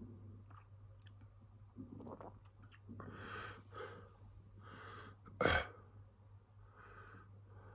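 A man breathing out hard through his open mouth, several short breaths, against the burn of a superhot chili. About five and a half seconds in comes one short, sharp, louder sound from his mouth or throat.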